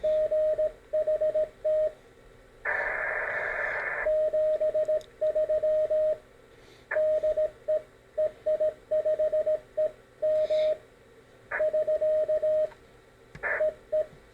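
Morse code keyer sidetone: a steady single-pitched tone keyed into dots and dashes by a homebrew capacitive twin touch paddle through an iambic keyer. A burst of hiss about 3 s in, lasting about a second and a half, interrupts the keying.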